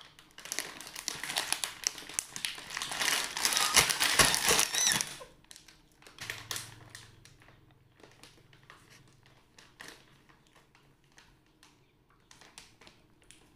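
Plastic wrapper of a pack of cream-filled wafer rolls crinkling as it is handled: a dense run of crackling for the first five seconds or so, then only scattered, quieter crinkles.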